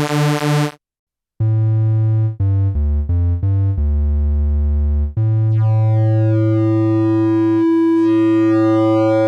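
Modal Electronics Cobalt8 virtual analog synthesizer playing demo patches. A pulsing note with a wash of noise cuts off, and after a short gap comes a deep bass line of a few notes. Then one long held note follows, its upper tones slowly sweeping.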